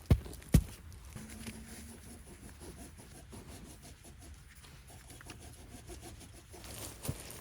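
Two sharp knocks at the start, then soft, irregular rubbing and scraping.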